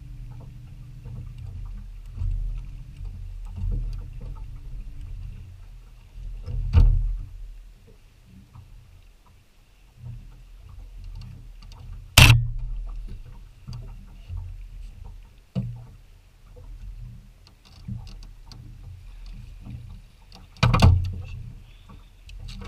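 Wind rumbling on the boat-mounted action camera's microphone, with several sharp knocks of gear against the boat deck. The loudest knock comes about halfway through; the others fall about a third of the way in and near the end.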